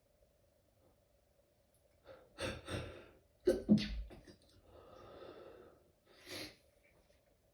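A person stifling a fit of sneezes: short muffled bursts with breaths between them, the loudest pair about three and a half seconds in. A longer breathy sound follows, then one more short stifled sneeze near the end.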